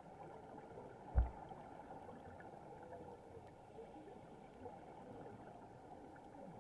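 Muffled underwater noise heard through an action camera's waterproof housing, with faint bubbling from scuba divers' exhaled breath and one low thump about a second in.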